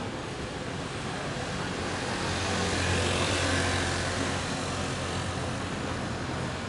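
A motor vehicle passes close by on the street, its engine rumble and tyre noise swelling to a peak about three seconds in and then fading, over steady city background noise.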